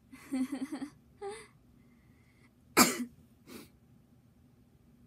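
A young woman coughing: a quick run of short coughs, a smaller one just after, then a single much louder, sharp cough about three seconds in, followed by a faint one.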